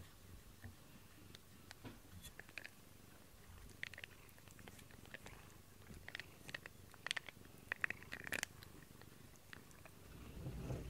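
A domestic cat purring softly while it rubs its cheek and whiskers against a rubber-bristled self-grooming brush. The rubbing makes short scratchy rasps and clicks, thickest in the middle of the clip and loudest near the end.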